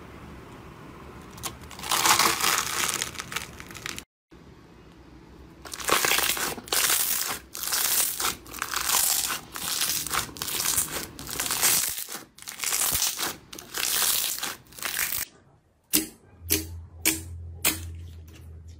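Slime being squeezed and pressed by hand, giving crinkly, crackling bursts that repeat about once a second. Near the end come a few sharp pops about twice a second.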